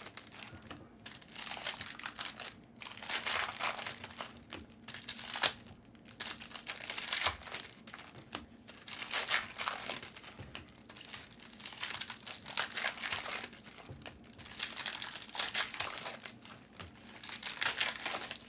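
Trading-card pack wrappers crinkling and tearing as packs are ripped open and handled by hand, in irregular bursts of crackle lasting a second or so each.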